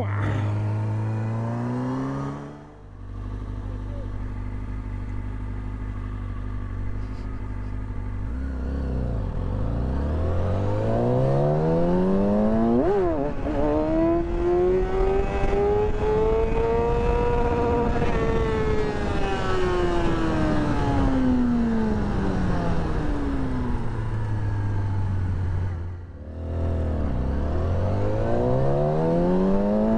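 Motorcycle engine heard from on board during a wheelie practice run. It runs steady, then revs up in a long rise in pitch with a quick sharp blip on the way up, and falls away again. It climbs once more near the end.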